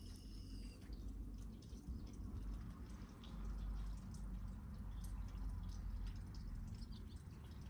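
Kittens chewing small fish: many quick, irregular wet clicks and smacks.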